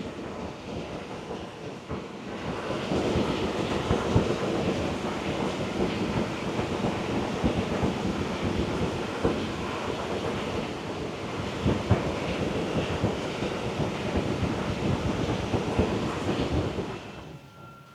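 Large industrial mobile fan with a 1500 mm blade running, a steady rush of air with gusty buffeting on the microphone. It gets louder about two and a half seconds in and drops away sharply near the end.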